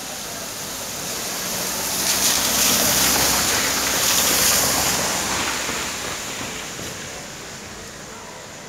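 A car passing on a rain-wet road: the hiss of its tyres on the wet surface swells, holds for a few seconds, then fades away.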